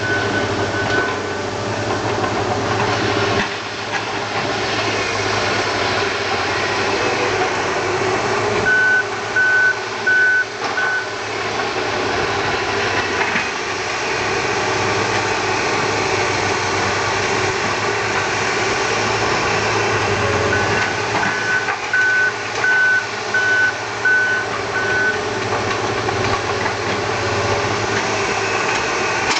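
Engine of a working vehicle or machine running steadily, with its reversing alarm beeping about twice a second in three runs: briefly at the start, for a couple of seconds about a third of the way in, and for several seconds past the middle.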